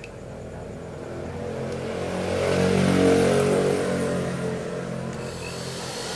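A motor vehicle's engine going past, growing louder to a peak about halfway and then slowly fading.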